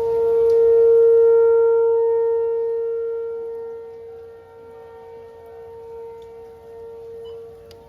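Outdoor civil-defense warning siren sounding a steady tone. It swells to its loudest about a second in, fades over the next few seconds, and stays fainter and wavering after that.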